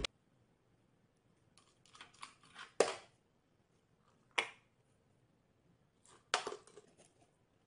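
Light clicks and knocks on a glass table top as a small tin can and a dog's paws touch the glass: a short run of taps ending in one sharper knock, a single knock a little later, then another brief cluster of taps.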